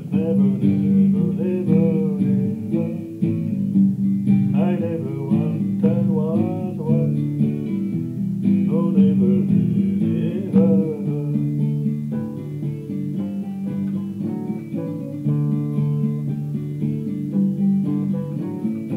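Acoustic guitar playing the instrumental break between verses of a folk song, steady chords underneath, with a wavering melody line rising above them twice.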